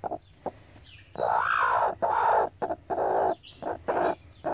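Broody hen disturbed on her nest, calling: short clucks, then several longer drawn-out calls from about a second in, one rising and falling in pitch.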